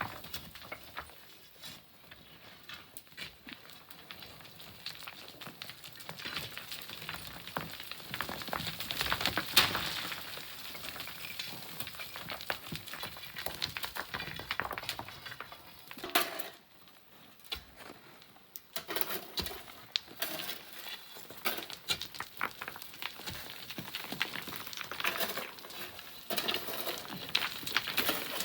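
Loose sand and pebbles trickling and clattering down, a dense patter of many small stone clicks, with a louder knock about nine seconds in and a short lull a little past halfway.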